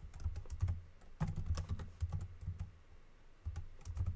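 Typing on a computer keyboard: irregular runs of key clicks, with a short pause about two and a half seconds in.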